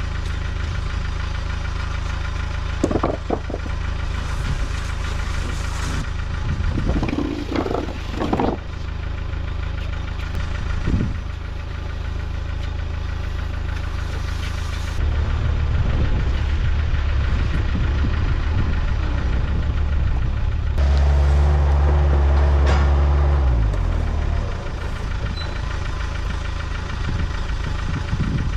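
Diesel tractor engine running steadily, revving up about halfway through and higher again for a couple of seconds before dropping back, as when working the loader. A few short clunks are heard in the first ten seconds or so.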